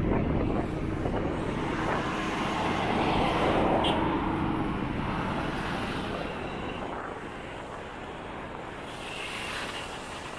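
Road noise from riding on a motorcycle in traffic: wind rushing over the microphone with the engine and passing vehicles, a steady drone that is loudest about three to four seconds in and then eases off.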